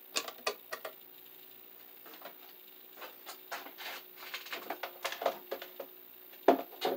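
Scattered light clicks and taps of hand tools and stiff copper wire being handled, in small irregular clusters, with one sharper knock near the end.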